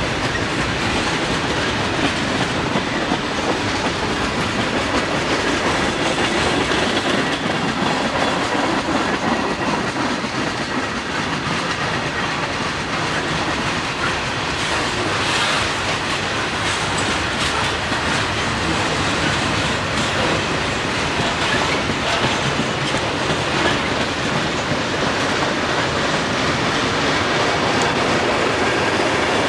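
Freight cars of a passing manifest train rolling by, the wheels clicking over rail joints over a steady rumble.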